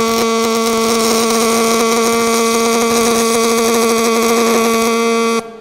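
Pulse MIG welding arc from an ESAB Warrior Edge, running .045 solid carbon steel wire under 90/10 shielding gas: a steady, pitched buzz over a crackling hiss that stops suddenly near the end as the arc is broken.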